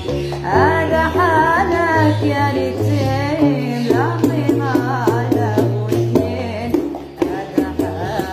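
Gnawa song: women's voices singing a winding melody over a guembri, the three-stringed bass lute, plucking a repeating low bass pattern.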